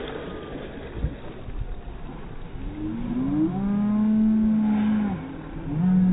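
Boat engine revving up: its pitch rises from about two and a half seconds in and holds steady, eases off around five seconds, and picks up again near the end, over wind and water noise. A short low thump comes about a second in.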